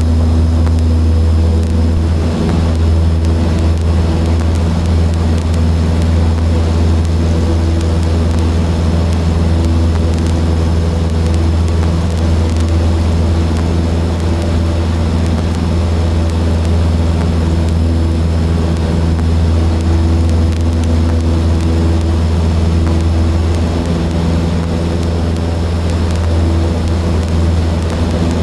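Cessna 152's four-cylinder Lycoming piston engine and propeller running steadily at low taxi power, a loud, even low drone heard from inside the cockpit.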